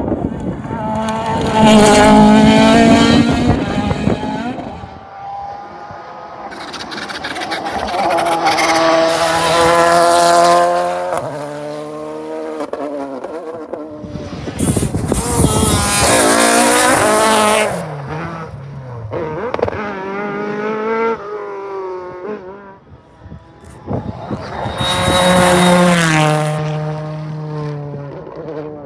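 Rally cars passing at speed one after another, about five passes. Each engine revs hard and climbs and drops through gear changes as the car comes by and fades away.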